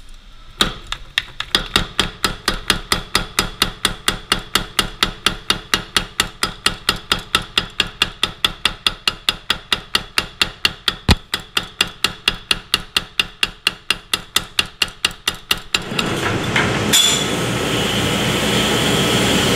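Power hammer striking a red-hot knife blade held on its dies: rapid, evenly spaced blows of metal on metal that stop about sixteen seconds in.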